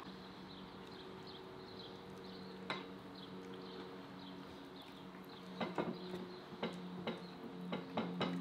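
A metal fork clicking and clinking against a dinner plate while eating: once near the start, then a quick run of clinks in the second half. Under it runs a steady low hum with faint, quick high chirps.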